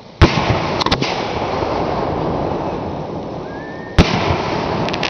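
Aerial fireworks shells going off: a sharp bang, a few small cracks and a rolling rumble, then a second bang about four seconds later with a faint rising whistle just before it. A quick cluster of crackling reports follows near the end.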